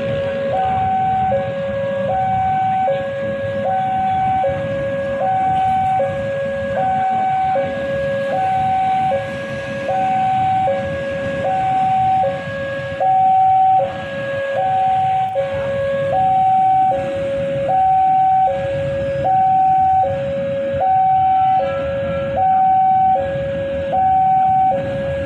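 Railway level-crossing warning alarm sounding a steady two-tone signal, switching between a higher and a lower pitch a little under once a second, over a low rumble of road traffic.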